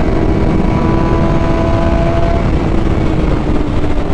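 600cc sportbike's inline-four engine held at steady revs under heavy wind rush, as heard riding on the bike; its pitch eases slightly near the end.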